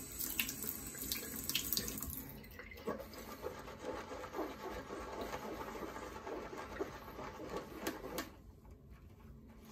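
Wet water-and-lather noise: a little water added to the brush tips, then a synthetic shaving brush whisking shaving soap into lather in a silicone bowl, a crackly, squelching sound. It stops suddenly about eight seconds in.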